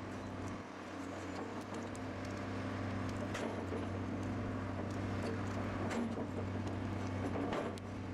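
Carrier machine's engine running steadily while its mounted impact hammer strikes a solidified slag skull in a slag pot, giving a few sharp, irregular knocks.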